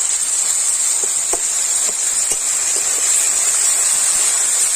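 Grated ginger, tomato and spices sizzling in hot oil in a kadai, a steady sizzle with a few small pops.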